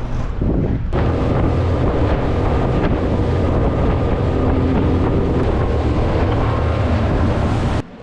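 Boat running under outboard power, the Honda outboard's steady drone under heavy wind noise on the microphone; the sound cuts off abruptly near the end.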